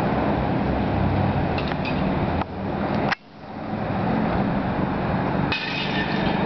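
Steady distant city traffic noise, with a few faint clinks and then, about five and a half seconds in, a crash of ringing clinks as a porcelain toilet is thrown into a dumpster of broken fixtures.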